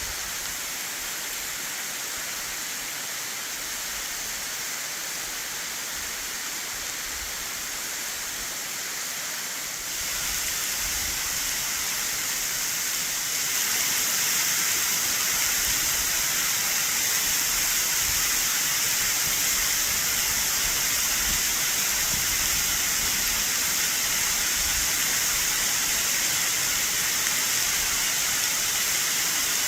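Waterfall cascading off a cliff, running high with spring snowmelt: a steady rush of falling water that grows louder about ten seconds in and again a few seconds later.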